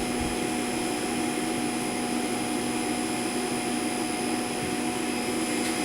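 Steady mechanical drone with a constant hum, a motor-driven machine such as a fan or blower running without change.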